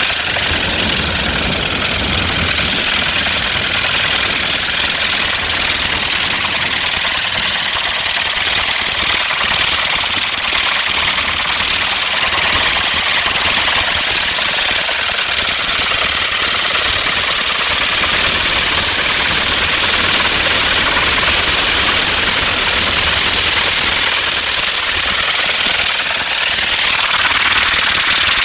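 Rotor-tip rocket engines (TAM hydrogen-peroxide tip jets) of an Intora rocket helicopter running in flight. They make a loud, steady, rushing hiss.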